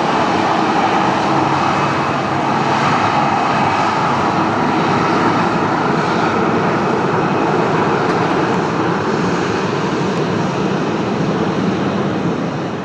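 Boeing 737-800's CFM56-7B turbofan engines running at low taxi thrust as the jet taxis close by: a loud, steady rushing noise with a faint steady tone on top, easing slightly near the end.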